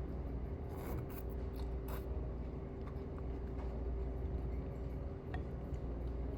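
Eating utensils scraping and clicking a few times about a second in, with a few faint ticks later, over a steady low hum and a steady mid-pitched tone from the restaurant's background.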